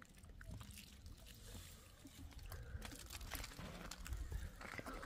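Water poured from a plastic jug and splashed onto a face by hand as someone washes, in several short stretches.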